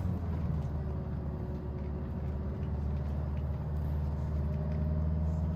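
Engine and road noise of a tour bus, heard from inside the cabin while it drives: a steady low hum that swells slightly near the end.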